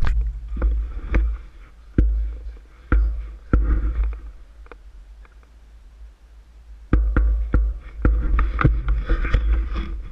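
Dull, heavy thumps and rumbles on a GoPro's microphone, typical of wind buffeting or knocks on the camera housing. There are about six in the first few seconds, then a quieter stretch, then another cluster about seven seconds in.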